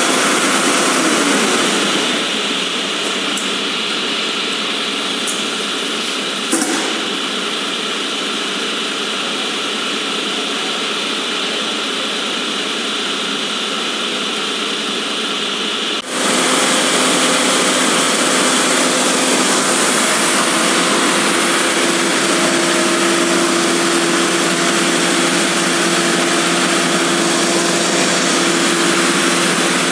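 Diesel engine of a Howo fire truck's aerial lift running steadily to drive the boom hydraulics, with a short click about six seconds in. About sixteen seconds in the engine suddenly runs louder and higher as the boom starts lifting the basket, and a steady hum joins it.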